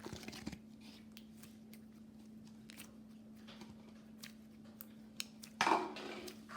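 Small scattered clicks and handling noises over a faint steady hum, then a louder, noisy scraping rustle about five and a half seconds in.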